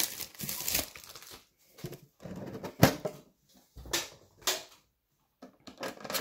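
Clear plastic shrink-wrap on a metal Pokémon Hidden Fates tin crinkling as the tin is handled and the wrap is peeled, with a few sharp clicks and knocks in between, the loudest about three seconds in.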